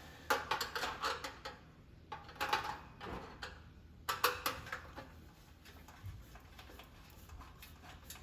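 Thin sheet-metal parts of an electric space heater being bent and handled by hand: irregular light metallic clicks and scrapes, busier in the first few seconds and sparser after.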